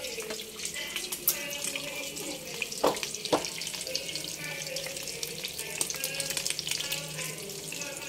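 Omelette frying in hot oil in a frying pan: a steady crackling sizzle, with two sharp knocks about three seconds in.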